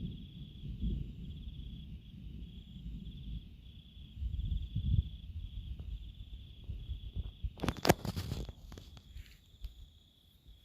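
Crickets chirping in a steady, pulsing high trill, over a low rumble that swells and fades. A brief loud crackle comes about eight seconds in.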